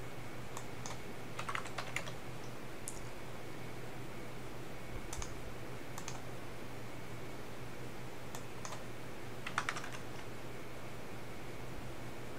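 Computer keyboard keys tapped in a few short clusters, with single clicks between, as values are entered. A steady low hum runs underneath.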